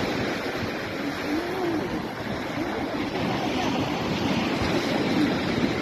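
Surf breaking steadily on a sandy beach, with strong wind buffeting the microphone.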